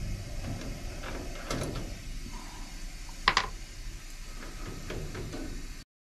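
Light clicks and rustling of hands working thin wires at a furnace transformer's terminals, with one sharp click about three seconds in. The sound cuts off suddenly just before the end.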